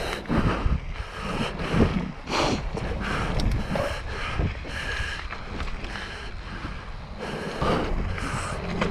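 Mountain bike being ridden along a dirt trail: wind buffeting the microphone over the rumble of the tyres, with frequent short knocks and rattles from the bike over bumps.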